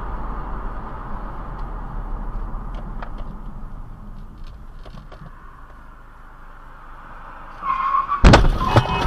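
Steady road and engine noise heard inside a moving car, easing off gradually, then a short high tone and, about eight seconds in, a loud sudden crash of a car collision at an intersection, followed by rattling.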